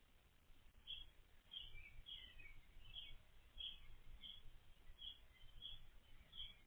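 Faint, regular high-pitched chirps, about one every two-thirds of a second, with a few lower falling notes about two seconds in, over a quiet night background.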